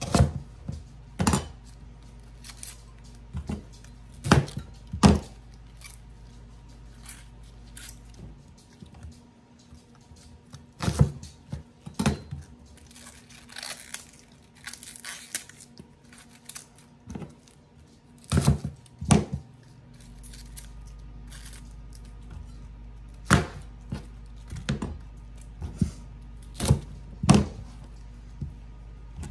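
Chef's knife cutting Brussels sprouts on a cutting board: irregular sharp knocks of the blade striking the board. In the middle, a soft rustle of outer leaves being peeled off a sprout by hand.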